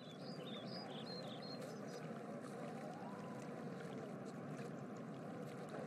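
Faint, steady running-water ambience like a stream, with a few short bird chirps in the first second or so.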